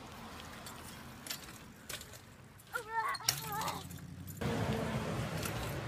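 A BMX bike rolling over a concrete sidewalk as it passes close by, its loose parts and chain rattling and clicking. A short run of squeaky chirps comes about halfway through, followed by a louder steady rushing noise.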